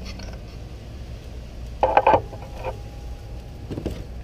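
Metal cooking utensils clattering at a grill: a loud clatter about two seconds in, with a faint ringing tone after it, and a smaller clatter near the end, over a steady low rumble.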